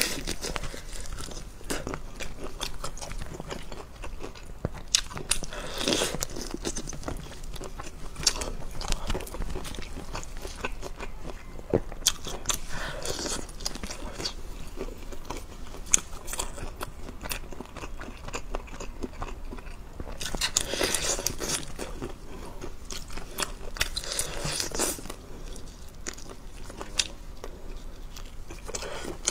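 Close-miked mouth sounds of someone eating spicy red-sauced shrimp: biting, chewing and crunching, with many sharp clicks and several louder, wetter stretches of eating noise.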